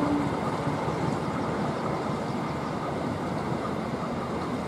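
Passenger train running past with a steady rushing noise; the tail of a train horn note cuts off just as it begins.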